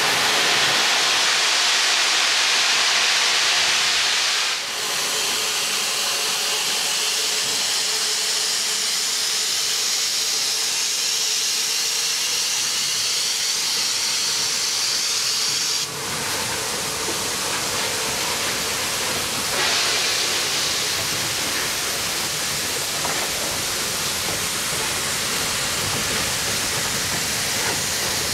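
Bulleid West Country class steam locomotives hissing steam, a loud continuous hiss from steam venting around the cylinders. It dips briefly about five seconds and again about sixteen seconds in.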